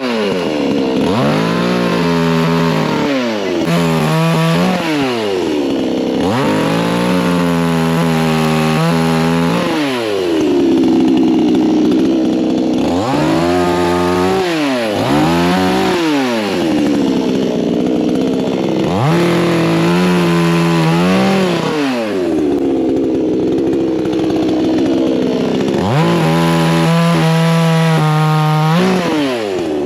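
Two-stroke chainsaw engine repeatedly revving up, holding at high revs for a second or more as it cuts through wood, then dropping back, over and over.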